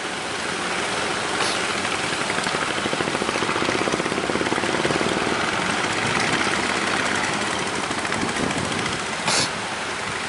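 A small engine running steadily with a fast, even chugging, over wind noise on the microphone. There are two brief bumps of wind or handling on the microphone, one about a second and a half in and one near the end.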